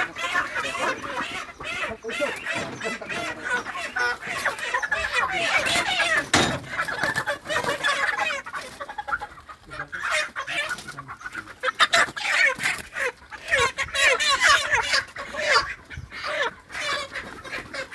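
A flock of broiler chickens squawking and clucking in distress as they are caught and bagged for weighing. Scattered knocks from the handling come through.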